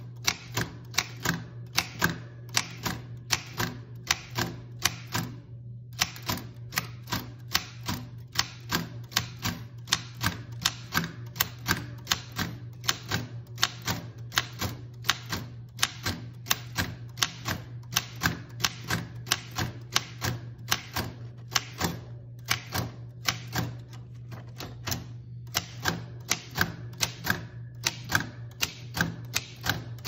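Remington Remette manual portable typewriter being typed on, keys striking at roughly three a second with a short pause about six seconds in, over a steady low hum.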